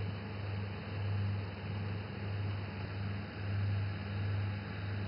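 Engine-driven flood-control water pump running: a low, steady hum that swells and fades about every two-thirds of a second, over a constant hiss.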